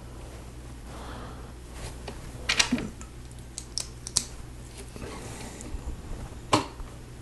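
Plastic Lego pieces clicking and snapping together as they are handled and pressed onto a model: a handful of sharp clicks, with loud ones about two and a half seconds in and near the end, over a low steady hum.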